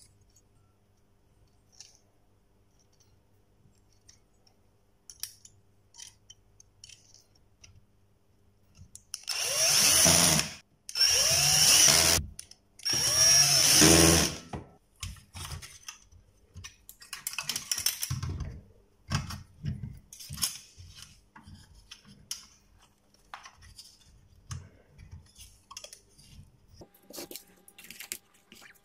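Power drill/driver driving screws into the welder's sheet-metal chassis in three short runs, each a second or two long, its motor pitch rising and falling. Lighter clicks and knocks of handling follow.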